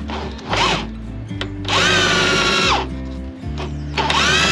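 Corded electric drill boring into a steel barge hull in short bursts: a brief one near the start, then two of about a second each. The motor whine rises each time the trigger is pulled and drops away when it is released.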